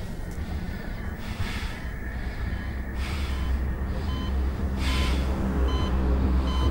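Film score building up: a low drone that grows steadily louder, breath-like whooshing swells about every two seconds, and short high beeps repeating from about four seconds in.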